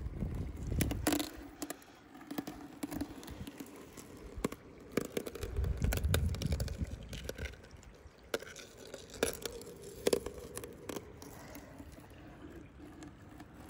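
Thin sheet ice being handled in shallow water: scattered sharp clicks, scrapes and small drips and splashes, with low rumbles of wind on the microphone at times.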